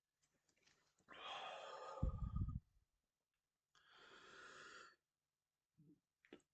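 A man breathing heavily: a long breath about a second in that ends in a short low rumble, then a second, quieter breath about four seconds in, and two faint short sounds near the end.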